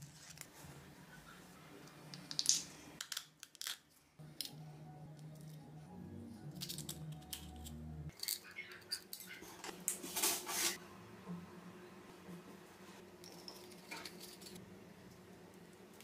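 Small handling sounds of crafting with cardboard and an aluminium soda can: scattered clicks and taps, with a cluster of sharp snips around ten seconds in as scissors cut through the can's thin metal. A faint steady hum runs underneath.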